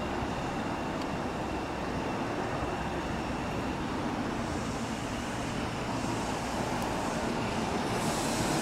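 Tokyu Kodomonokuni Line Y000-series electric train pulling into the station. Its running noise grows steadily louder and brighter as it nears.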